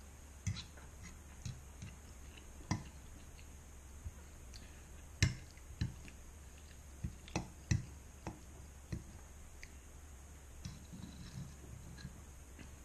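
Metal fork clicking and scraping against a nonstick frying pan as spaghetti is twirled, in about a dozen scattered sharp ticks, the loudest about five seconds in, with some chewing between them.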